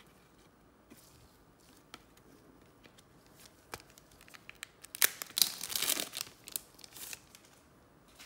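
Light scattered clicks of trading cards being handled, then, about five seconds in, a foil trading-card pack being torn open, with about two seconds of loud tearing and crinkling of the wrapper.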